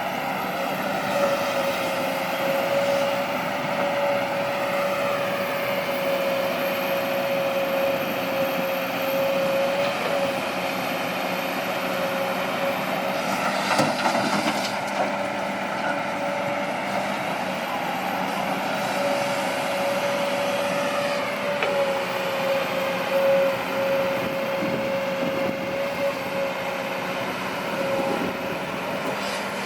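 Kobelco SK200-8 Super XM excavator's diesel engine running under load with a steady hydraulic whine, its pitch rising and falling as the machine works. A single knock comes about halfway through.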